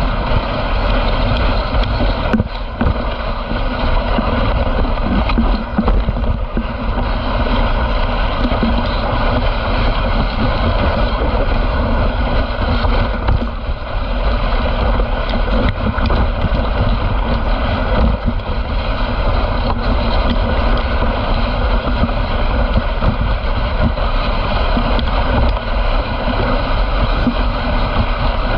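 Dog sled moving along a groomed snow trail: a steady rushing and scraping of the runners over packed snow, mixed with wind on the microphone.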